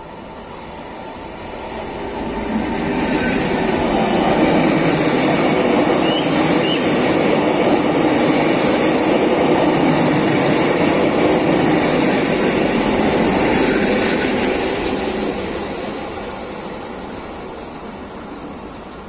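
Renfe double-deck electric commuter train passing through a station without stopping. The rumble of its wheels on the rails builds over the first few seconds, holds for about ten seconds as the carriages go by, then fades away.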